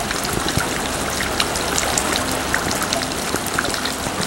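Steady rainfall: an even hiss of rain dotted with many separate drops striking and dripping.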